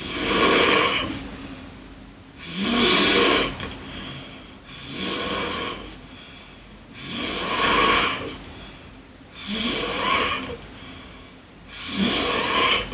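A sleeping girl snoring, one breath sound about every two and a half seconds, some louder than others.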